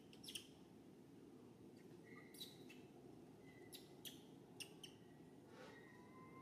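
Faint short high-pitched animal chirps, half a dozen spread irregularly across a few seconds, with a couple of brief thin whistles, over a steady low background hiss.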